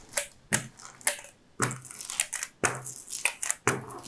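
A rubber brayer rolled back and forth over a sheet of paper laid on a freshly glued canvas, the paper crinkling and rustling about twice a second as the roller presses the canvas into the PVA glue beneath.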